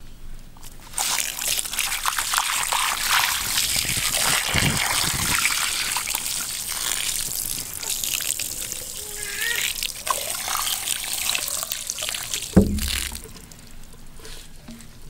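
Water pouring and splashing over a plucked, gutted bird carcass as it is rinsed by hand, starting about a second in and easing off near the end. A single low thump comes shortly before the water stops.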